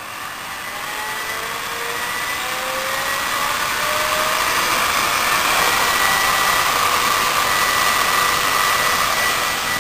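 12-volt centrifugal blower fan spinning up on full voltage from a molex lead: a rush of air with a rising whine that grows louder over the first five seconds or so, then holds steady at full speed.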